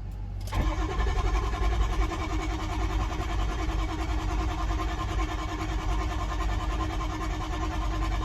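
A 6.0-litre engine being cranked over by its starter, starting about half a second in and running on steadily without the engine catching: a no-start condition.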